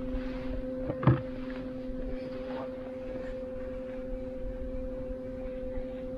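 Boat motor running at a steady trolling speed, a constant even hum. A single sharp knock sounds about a second in.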